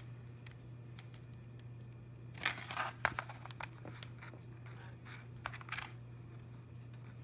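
Screen protector packaging being handled and opened: a few short rustling, crinkling bursts and clicks, the loudest about two and a half seconds in, over a low steady hum.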